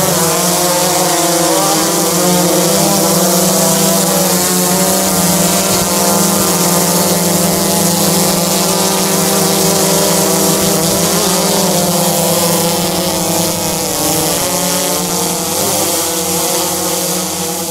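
DJI Inspire 1 quadcopter flying close by: the steady buzz of its four electric motors and propellers, the pitch sliding up and down as the motors change speed to manoeuvre.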